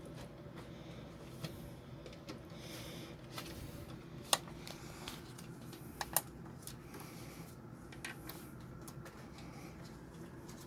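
Hands routing a new switch wire through a tankless water heater: light scattered clicks and rustles of wire and plastic parts being handled. There is a sharp click about four seconds in and two close clicks about six seconds in, over a low steady hum.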